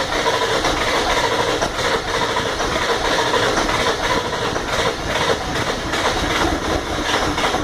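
A 1997 Ford F-250's 7.3 L Power Stroke V8 diesel is cranked on the starter. It stumbles as some cylinders fire, like it wants to start, but does not catch: a hard start. The cranking stops near the end.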